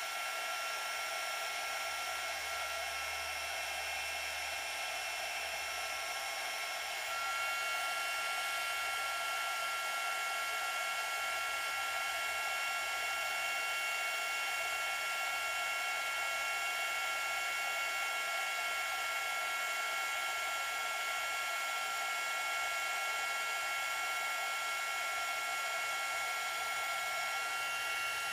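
Small heat gun running steadily, blowing hot air with a whining fan motor over a steady rush of air. It heats silver-plated rhinestone settings to melt low-temperature solder. About seven seconds in, the pitch of the whine shifts and the sound gets slightly louder.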